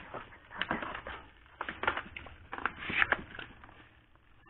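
Parcel packaging crinkling and crackling in irregular bursts as it is cut and pulled open by hand, loudest about three seconds in.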